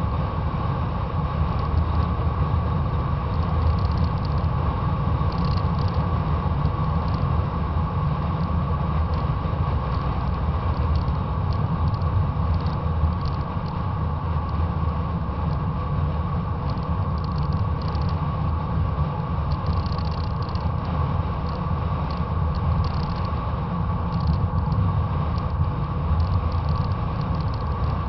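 Fox-body Ford Mustang 5.0 driving along a road, heard from a camera suction-mounted outside on its front fender: steady wind rumble on the microphone and road noise.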